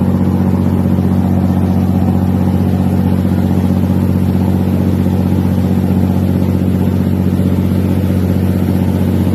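Riverboat's Scania 600 hp electronic diesel engine running steadily at cruising power: a loud, even drone that does not change.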